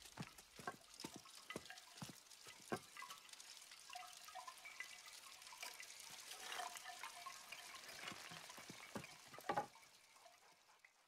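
Faint, sparse drip-like plinks and clicks with a few short chime-like notes, a louder cluster about nine and a half seconds in, then fading away.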